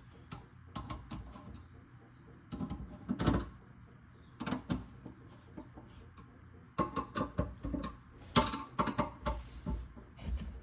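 Irregular clicks, taps and scrapes of a screwdriver and metal parts as the garbage disposal mounting-ring screws are snugged down, in scattered clusters with a busier run of clicks in the second half.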